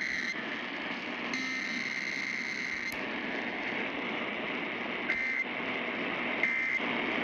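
Emergency Alert System digital data tones played over the radio. First the tail of one screechy burst, then a second burst of about a second and a half. Then, after a pause, three short bursts about a second apart: the end-of-message code that closes the test. A steady hiss runs under them.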